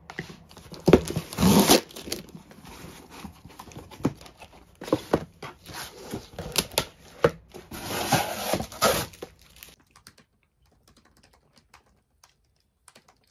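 Cardboard shipping box being opened by hand: packing tape tearing and the cardboard flaps and packaging rustling and scraping in irregular bursts. The handling stops about ten seconds in.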